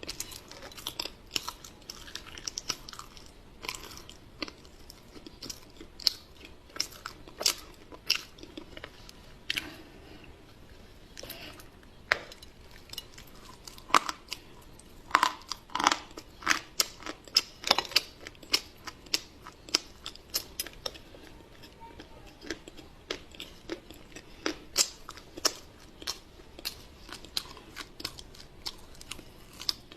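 A person chewing and crunching a chocolate pie dusted with cocoa powder, with irregular sharp crunches several times a second. The crunches are loudest and thickest around the middle.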